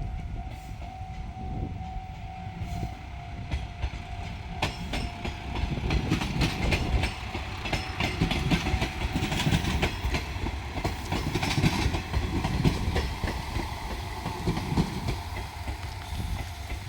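A JR Shikoku diesel train passing close by over a level crossing, its wheels clicking rapidly over the rail joints under a heavy low rumble. A level-crossing warning bell dings repeatedly through the first half.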